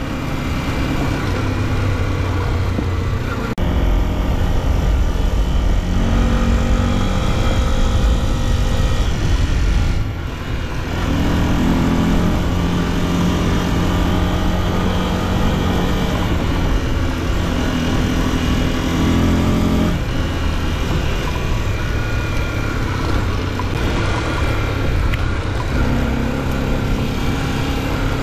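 Off-road motorcycle engine running hard, its note shifting up and down in steps as the throttle changes, with brief drops in loudness about 3 and 10 seconds in.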